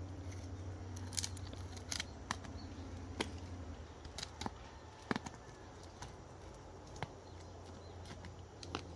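Knife cutting and scraping the charred skin off a roasted breadfruit: irregular short scrapes and clicks, roughly one a second.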